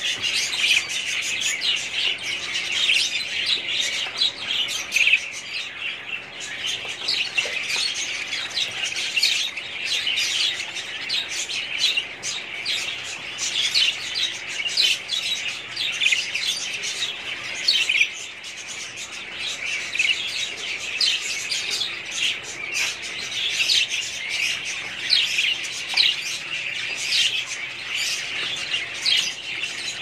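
Budgerigars chattering and chirping continuously, many birds at once, with a dense stream of short overlapping warbles and chirps.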